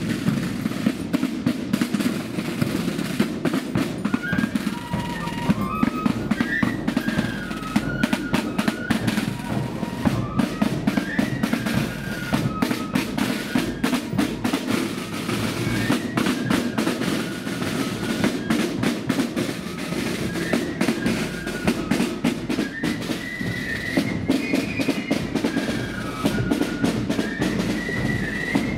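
Marching flute band on parade: side drums rolling and a bass drum keeping the march beat, with flutes coming in on a stepping tune about four seconds in.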